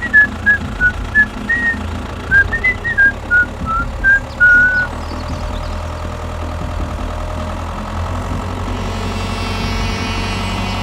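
A short whistled tune of quick separate notes over a steady engine-like drone; the whistling stops about five seconds in and the drone runs on alone.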